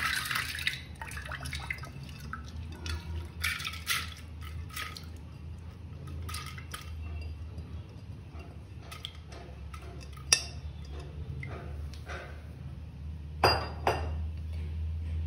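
Wet, soaked toor dal sliding and pattering out of a glass bowl into an aluminium pressure cooker, then a metal spoon scraping and clinking against the glass bowl to push out the last grains. A sharp click about ten seconds in and a few knocks near the end.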